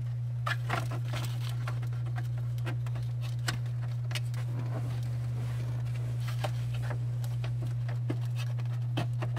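Scattered light clicks and scrapes of an ignition switch being worked back up into place in a car's steering column, over a steady low hum.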